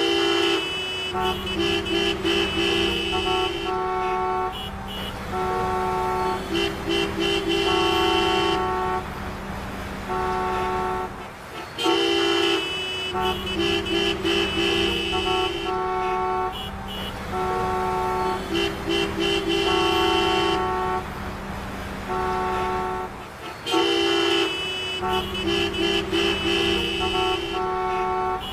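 Traffic jam: many car horns honking in short and long blasts over the steady hum of idling traffic. The same stretch of honking repeats about every twelve seconds, as a looped sound effect.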